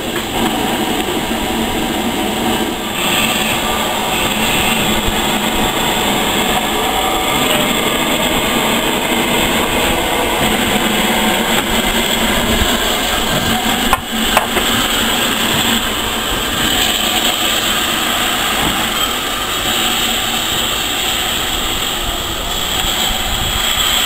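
Steam locomotive at close range: a steady rush of steam and working noise that holds at an even level, with a single sharp click about fourteen seconds in.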